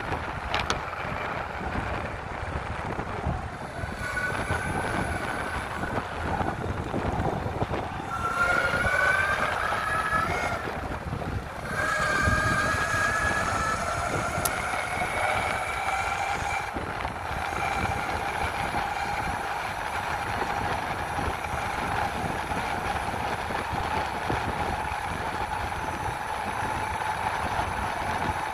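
Electric mountainboard motors whining over a steady rumble of wheels and wind. In the middle the whine glides up in pitch twice as the board speeds up. A single click comes just after the start.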